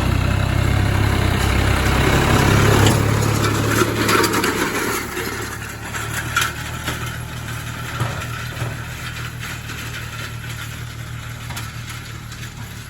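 Case IH JX60 tractor's diesel engine running steadily under load while it pulls a disc or drag, with a few short rattles. The engine is louder for the first four seconds or so and then eases off.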